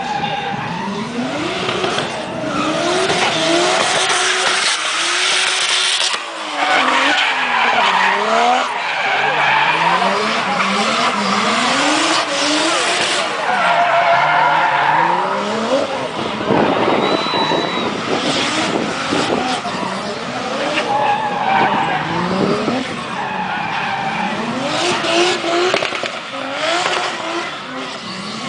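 Drift cars sliding, their engines revving up and down again and again, with tyres screeching.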